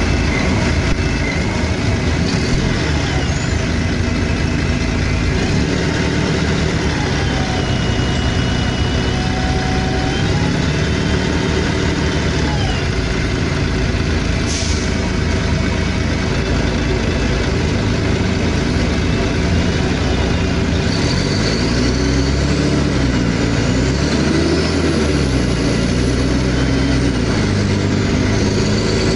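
Mercedes-Benz O500UA articulated city bus's OM 457 straight-six diesel with an open exhaust, heard from inside the bus while under way through its Voith automatic gearbox. The engine note rises and falls with the bus's speed, with a short hiss near the middle.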